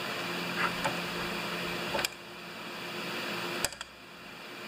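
Steady room hum with a few light ticks as small carburetor parts are handled, then two sharper clicks, one about halfway through and one near the end.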